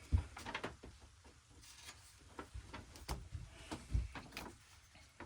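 Handling sounds of a paper instruction manual being picked up and leafed through: scattered light clicks and rustles with a few soft thumps.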